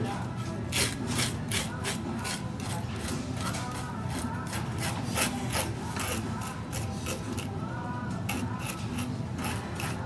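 A hand fish scaler scraping the scales off a large whole fish on a cutting board, in rapid repeated rasping strokes, about two or three a second, with a short lull near the end.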